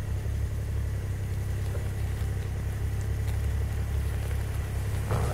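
Snowmobile engine running steadily at a low, even pitch, with a brief knock near the end.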